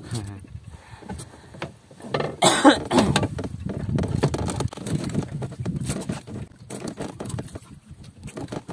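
Handling noise as squid-fishing lamps are moved about on a boat's gunwale close by: rustling and knocking, loudest in a burst about two and a half seconds in, followed by a rough, uneven rumble.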